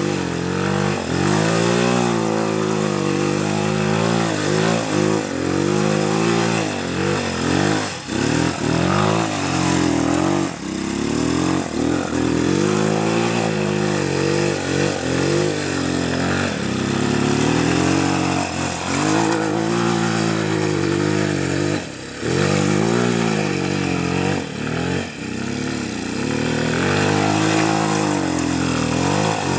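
Bashan 250 ATV's single-cylinder engine revving up and falling off again and again, its pitch swinging up and down every couple of seconds as the quad is thrown through tight turns and slides on grass.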